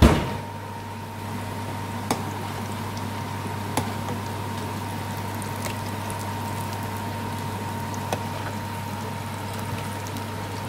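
Potato and red lentil pakoras sizzling and bubbling in hot oil in a frying pan, with a sharp knock at the start and a few light clicks of a metal slotted spoon against the pan as they are turned. A steady low hum runs underneath.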